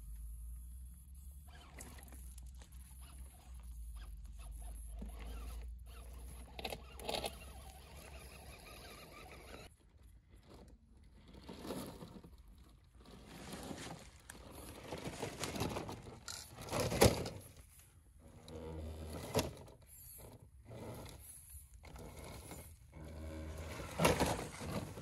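Radio-controlled scale crawler trucks driving over rough trail: stop-start bursts of electric motor and gear whine with tyres scrabbling and scraping over the ground, and sharper, louder scrapes or knocks about 17 seconds in and again near the end.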